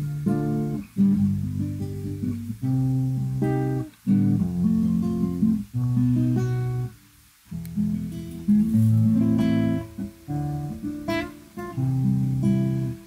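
Classical guitar played fingerstyle: plucked melody notes over low bass notes, with a brief pause about seven seconds in before the playing goes on.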